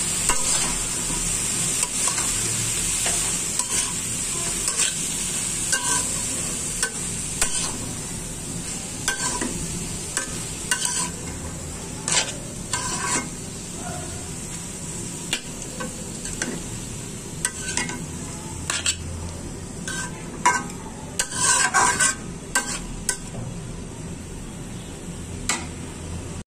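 A spatula stirring and tossing shredded cabbage with small prawns in a karahi, scraping and knocking against the pan at irregular intervals. Under it, a frying hiss that fades over the first ten seconds or so.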